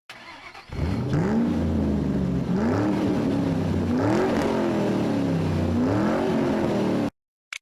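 Car engine revved up and down about four times in a row, then cut off abruptly.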